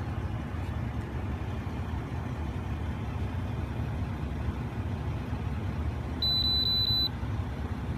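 Steady low rumble from the pickup truck, with a short high electronic beep about six seconds in that pulses about four times in under a second.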